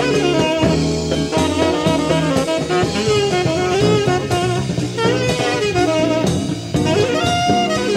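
Live band music: a saxophone plays a wavering melody line over a rhythm section with drum kit and steady bass notes.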